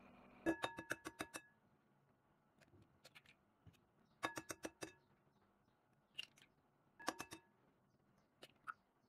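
Eggs being cracked on the rim of a glass mixing bowl: three short runs of quick taps, each making the glass ring briefly, with a few fainter clicks between.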